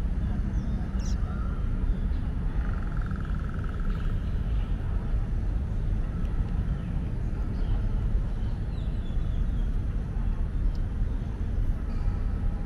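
Steady low outdoor rumble with faint bird chirps and a short bird trill a few seconds in.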